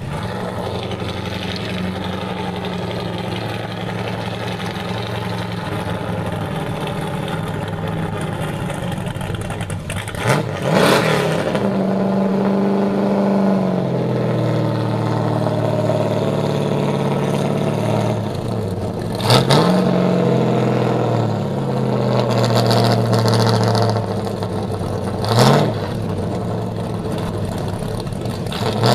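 Pontiac Fiero fitted with a supercharged engine, idling steadily and revved sharply three times, about ten, nineteen and twenty-five seconds in, with the engine held at higher revs for a couple of seconds after the first blip.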